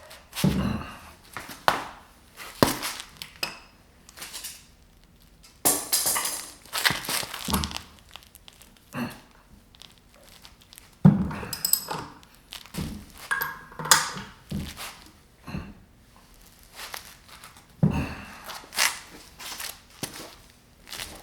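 Irregular knocks, clinks and scrapes of hand tools and steel parts being handled while a flywheel puller is fitted to a classic Mini's A-series engine, with a few short stretches of rattling or scraping in between.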